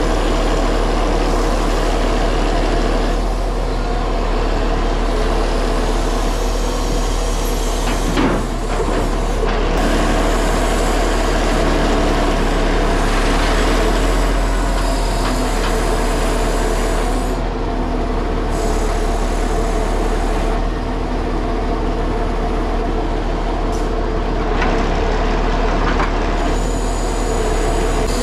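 Timber truck's diesel engine running steadily under way, with road and tyre noise, and a brief dip in level about eight seconds in.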